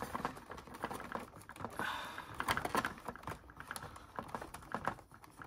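Rapid, irregular small clicks and taps of hard plastic being handled as an action figure is worked into a toy helicopter's cockpit.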